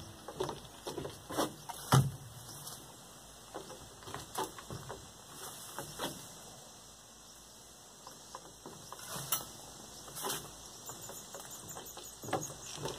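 Scattered light knocks and rustles at irregular intervals, the loudest a sharp thump about two seconds in.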